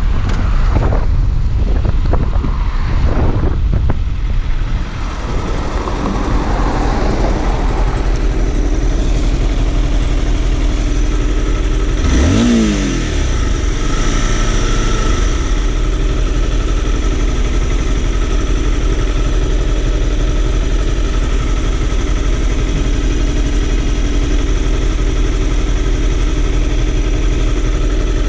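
Wind rushing over the microphone as a sport motorcycle slows to a stop, then the motorcycle's engine idling steadily. About twelve seconds in there is a short rising-and-falling sweep in pitch.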